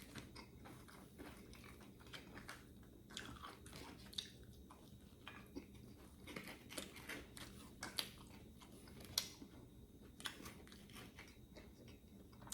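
A person eating close to the microphone: biting and chewing food, with irregular crisp crunches and mouth clicks. A couple of crunches past the middle are louder.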